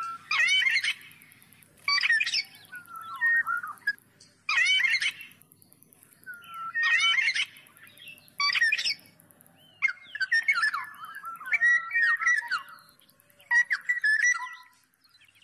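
Black-naped oriole calling: repeated short bursts of call notes mixed with brief whistled notes, roughly every two seconds. In the second half they run together into a longer stretch.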